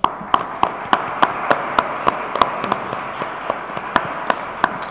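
Audience applause, many hands clapping, starting suddenly and thinning slightly near the end.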